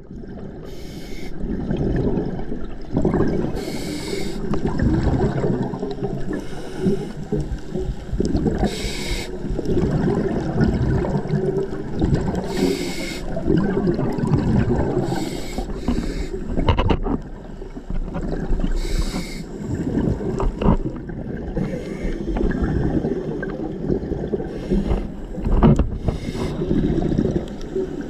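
Scuba dive heard through an underwater camera housing: a steady muffled low rumble of water, with a short hiss from a diver's scuba regulator every few seconds as the diver breathes.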